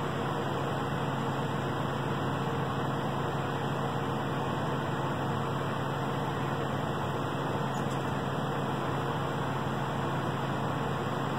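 A steady machine hum, a low constant drone under an even hiss, with no change.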